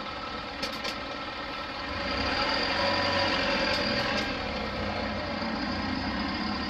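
Nissan Diesel city bus's diesel engine pulling away from a stop; the engine note rises and grows louder about two seconds in as the bus accelerates off.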